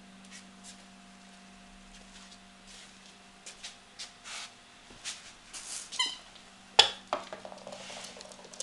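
A puppy's short, high squeak about six seconds in, among scuffling and puffs of noise, with a sharp knock a moment later as it plays close to the microphone. A faint steady low hum runs underneath.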